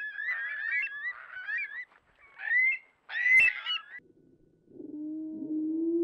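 A roost of Eurasian curlews calling, many overlapping rising whistled calls, with one sharp crack about three seconds in. From about four and a half seconds in, the same recording is played slowed down, turning the calls into low, drawn-out rising tones.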